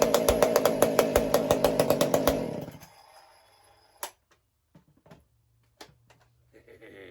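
Husqvarna 576 XP two-stroke chainsaw, fitted with a 575 XP carburettor and a homemade muffler, running loud with a rapid regular beat, then shut off about two and a half seconds in; it is running rich. A few light knocks follow.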